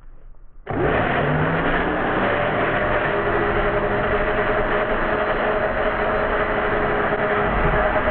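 Black & Decker Dragster belt sander switched on about a second in, then running steadily with a motor whine over the belt's noise.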